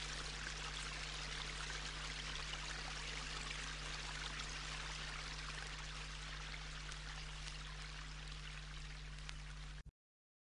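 Steady hiss with a low hum underneath: the background noise of an old spoken-word recording with no voice on it. Near the end it cuts to dead silence for about a second.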